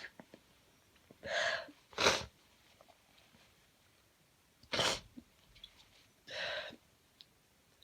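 A person's sneezes and sniffles: two short, sharp bursts about two and five seconds in, each near a breathy sniff.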